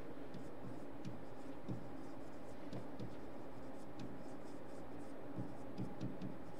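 A pen writing on a board: faint scratches and light taps as words are written out, over a steady low room hum.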